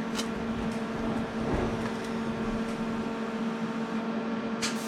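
TIG welding setup running during tack welds on a stainless steel exhaust: a steady electrical hum with an even hiss, and a short sharp crackle near the end.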